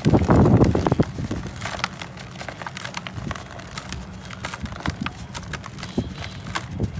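Dry sand-cement chunk crushed by hand into a plastic basin. A loud gritty crumble in the first second, then steady fine crackling as grains and small lumps trickle and pour.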